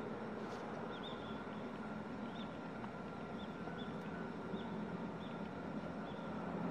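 Short, high bird chirps, repeated about once a second, over a steady low outdoor rumble that grows slightly louder near the end.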